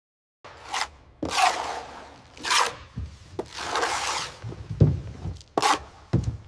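About six rough scraping and rubbing strokes of a trowel on floor adhesive and of carpet being worked onto a floor, with a couple of dull thumps in the second half.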